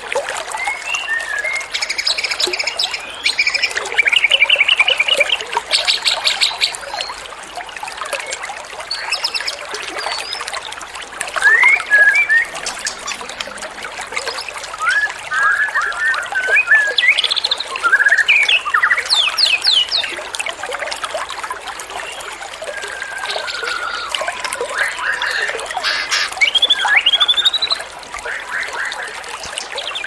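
A mix of small songbirds singing: rapid trills, chirps and short whistled phrases, one after another, over a steady rush of running water.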